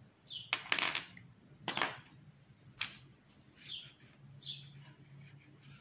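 Colored pencil scratching across paper in short strokes, with a few louder knocks and rubs in the first three seconds.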